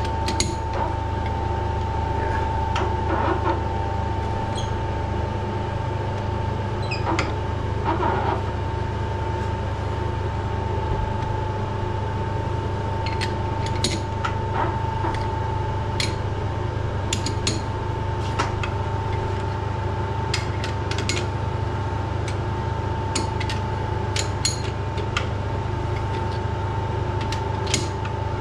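Metal lathe running steadily with a constant high whine over a low hum, and scattered light metallic clicks as a thread is cut into an aluminium cylinder head.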